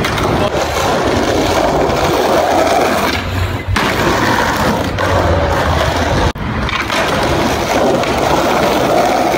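Skateboard wheels rolling on concrete pavement, a steady loud rumble, broken abruptly twice, about four and six seconds in.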